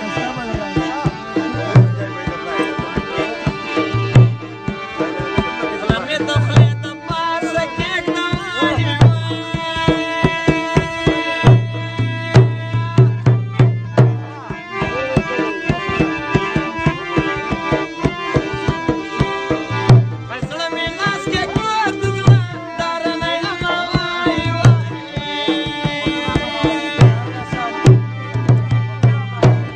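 Live Pashto tapay folk music: a harmonium plays held chords and a moving melody over a dhol drum beating a steady rhythm, its deep bass strokes coming in regular groups.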